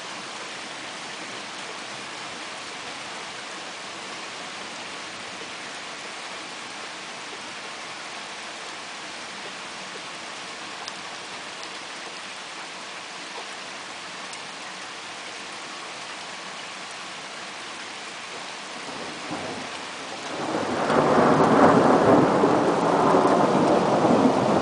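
Steady hiss of rain falling. Near the end a loud roll of thunder builds quickly and rumbles on.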